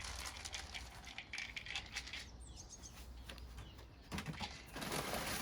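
Bird seed being poured and shaken, a patter of small hard grains that grows denser and louder near the end. A faint bird chirps once or twice in the middle.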